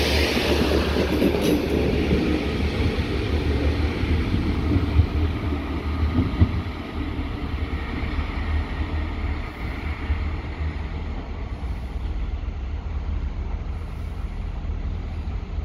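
A train running past on the track: a heavy, steady low rumble with wheel and rail noise that slowly gets quieter.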